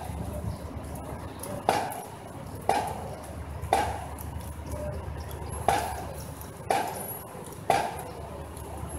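A marching drum beat, single sharp strokes about once a second keeping time, with one beat dropped midway. Steady low background noise runs underneath.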